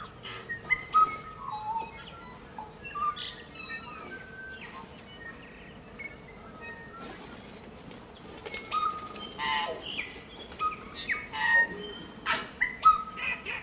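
Tui morning chorus: tui singing a string of short chirps, sliding notes and clicks, which grow denser and louder about two-thirds of the way through.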